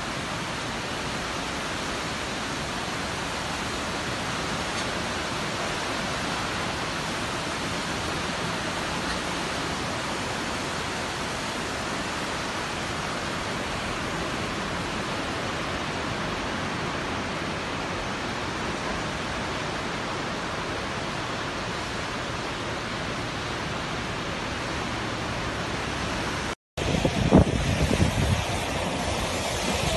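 Heavy rain and running water, a steady even hiss. About 27 seconds in it cuts out for an instant and gives way to a louder, uneven rushing with low thumps.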